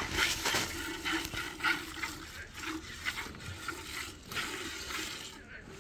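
Milk squirting from a cow's teats into a metal bucket during hand milking, in a steady rhythm of short spurts.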